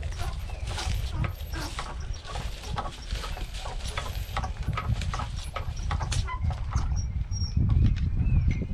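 Strong wind buffeting the microphone in a steady low rumble, with scattered crackles and clicks of dry leaves and twigs.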